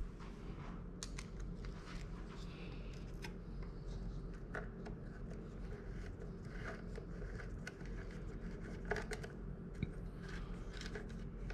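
Faint, irregular small clicks and scrapes of a T-handle hex key turning the bolt that fastens a chain guide to an e-bike's motor, metal tool on metal bolt.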